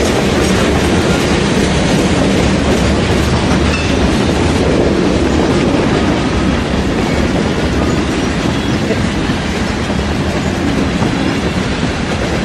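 Freight train of covered hopper cars rolling steadily past, a continuous rumble of steel wheels on the rails.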